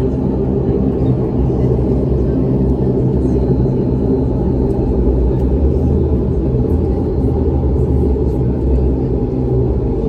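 Cabin noise inside a De Havilland Dash 8-400 turboprop airliner taxiing: the engines and propellers running with a steady low drone and hum.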